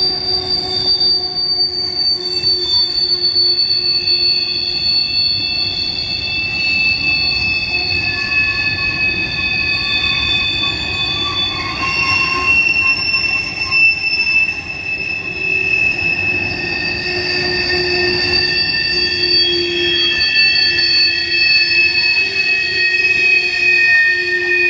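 Wheels of an empty covered-hopper grain train squealing as the cars roll through the curve off the main line, over the steady rumble of the passing cars. Several high, drawn-out squeal tones overlap and slowly drift in pitch, which is wheel flanges grinding against the rail on the curve.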